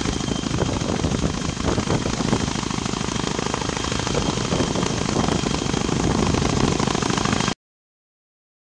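Tandem-rotor helicopter hovering, its rotors making a rapid, continuous chop, until the sound cuts off suddenly about seven and a half seconds in.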